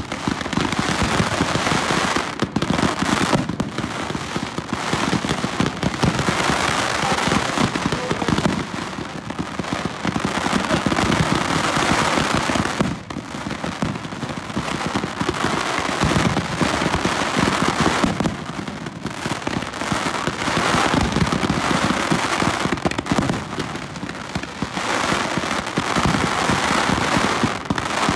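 Close-range fireworks barrage: dense, rapid bangs and pops running together almost without a break, easing off briefly a few times.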